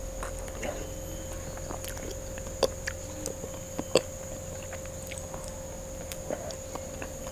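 Close-miked mouth sounds of a person eating an ice cream bar on a stick: small wet lip and tongue clicks as she licks and sucks at it, with two sharper clicks a little under 3 s and about 4 s in. A steady thin hum and whine sits underneath.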